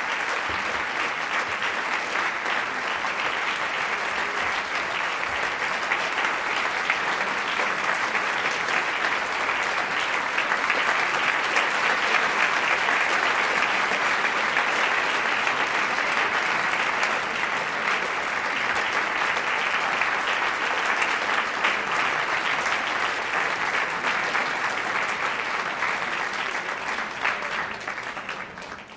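Audience applauding: dense, steady clapping that fades out at the very end.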